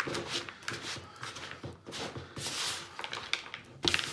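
Silicone spatula stirring stiff cookie dough with chocolate chunks in a plastic mixing bowl: irregular scraping and squelching strokes, with a sharper knock near the end.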